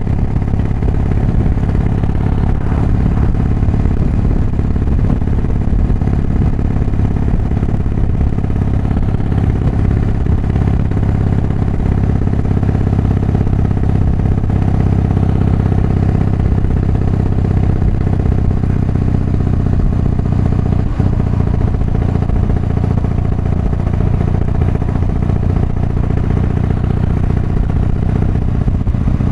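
Harley-Davidson Softail's V-twin engine running steadily, heard through a microphone inside a full-face motorcycle helmet; the engine's ignition timing has been advanced.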